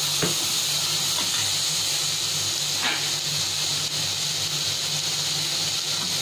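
Vegetables sizzling in hot oil in a pan, a steady hiss. A steel ladle scrapes through them against the pan twice, once just after the start and once about three seconds in.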